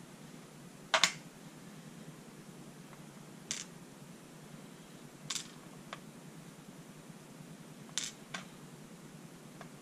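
Scattered sharp clicks of small metal lock parts being handled and set down as a pin-tumbler lock is taken apart. The loudest is a double click about a second in, then single clicks every second or two.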